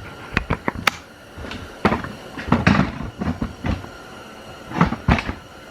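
Irregular knocks, clicks and clunks of handling, as the camera is set down and moved about on a surface.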